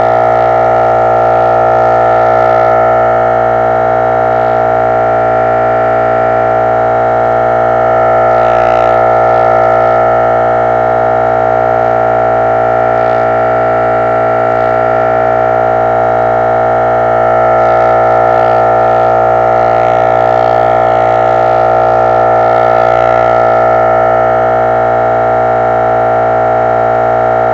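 Synthesized 'chorded robot' sound effect: a loud electronic chord of many steady tones held without a break, swelling slightly in loudness now and then.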